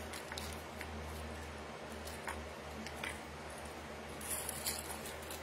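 Faint clicks and rustles of a wooden-bead necklace being handled and laid on a display bust, with a small flurry of clicks a little over four seconds in, over a steady low hum.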